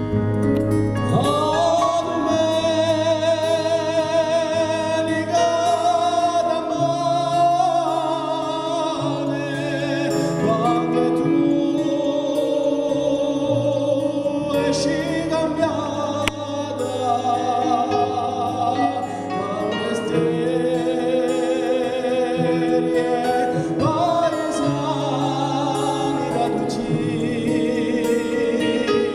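A man singing a slow solo song to his own acoustic guitar accompaniment, his voice coming in about a second in.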